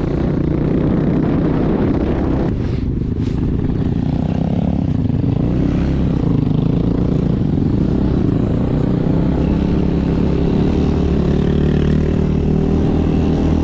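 A vehicle engine running steadily under load, its pitch wavering up and down as it drives through loose sand.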